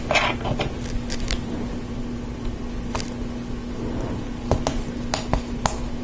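Short sharp clicks of LEGO Technic plastic parts being handled and snapped together, pins pressed into a beam and a connector fitted on. There are a few near the start, one about three seconds in, and several in quick succession near the end, over a steady low hum.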